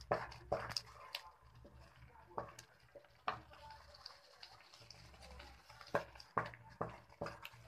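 Wooden spatula stirring thick, bubbling carrot paste in a non-stick frying pan: irregular soft scrapes and wet squelches, busier near the start and the end, over a faint steady low hum. The paste is being cooked down to dry off its water.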